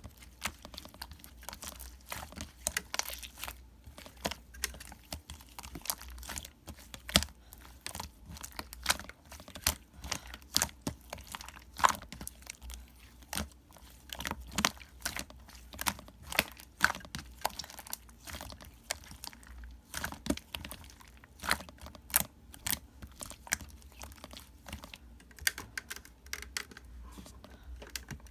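Irregular close-up clicks, taps and crinkles, like small objects or packaging being handled.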